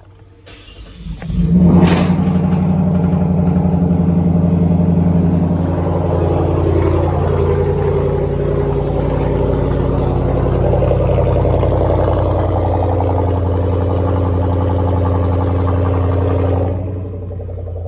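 Straight-piped exhaust of a Kia K900 (catalytic converters kept) as the engine starts about a second and a half in. It idles higher for a few seconds, then settles into a steady idle, and drops in level shortly before the end.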